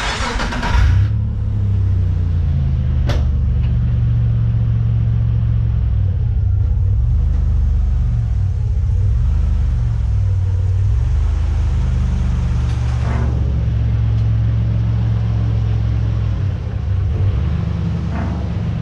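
Nissan VG30 V6 engine running steadily in fourth gear with the truck jacked up, turning the driveline and wheels in the air at about 40 km/h by the speedo to work in a freshly rebuilt limited-slip diff. A steady low rumble throughout.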